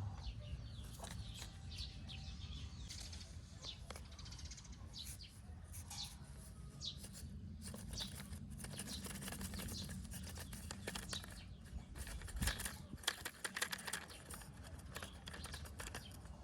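Faint outdoor sound: small birds chirping now and then among scattered light clicks and scrapes, with a busier run of clicks a little past the middle.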